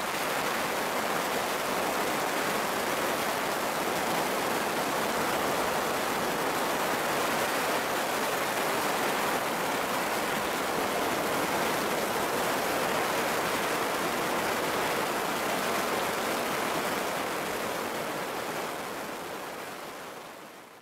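Heavy downpour: rain pouring down in a steady hiss, fading out over the last few seconds.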